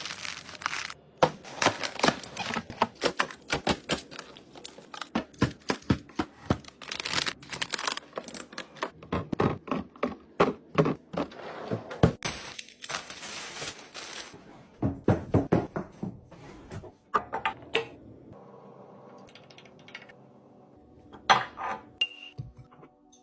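Household items and containers being handled and set down while restocking and organising: a busy run of taps, clicks and knocks, thinning out to a few scattered clicks after about 18 seconds.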